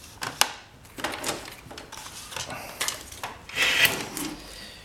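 Plastic parts being handled and wiggled inside a partly disassembled Epson P600 printer: scattered clicks and knocks with rubbing between them, and a short scrape late on.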